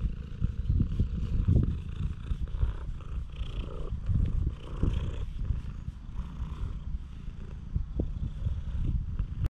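Orange-and-white cat purring close to the microphone while being stroked on the head and back: a continuous, fluttering low rumble that cuts off abruptly near the end.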